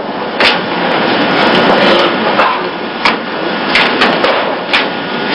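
Sharp slaps and thuds of bodies hitting the mat as aikido practitioners are thrown and take breakfalls, about half a dozen in a few seconds, over a steady noisy hiss.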